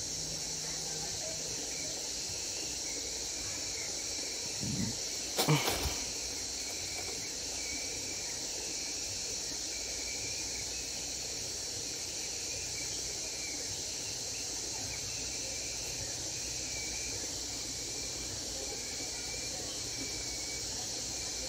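Steady high insect chorus in the background. A single brief knock comes about five seconds in.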